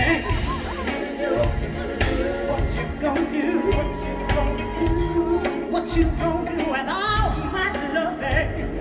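Live R&B band playing, with a female lead vocalist singing over electric guitar, bass and drums, and one long held note in the middle.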